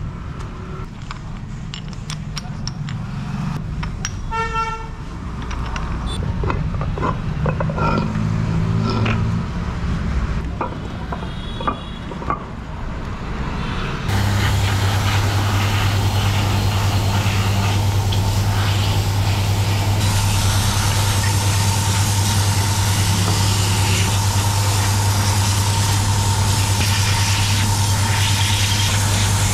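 Road traffic with a short vehicle horn toot about four seconds in. About halfway through it cuts suddenly to a loud, steady motor or engine hum.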